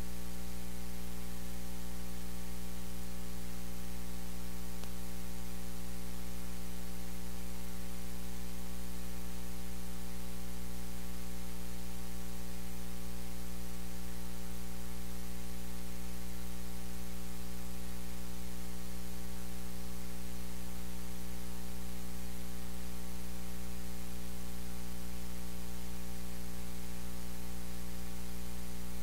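Steady electrical mains hum with an even layer of static hiss, unchanging throughout, with no other sound standing out.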